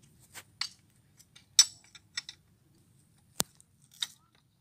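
Small metal parts clinking and clicking against each other as they are handled: about seven sharp, irregularly spaced clinks, the loudest about one and a half seconds in.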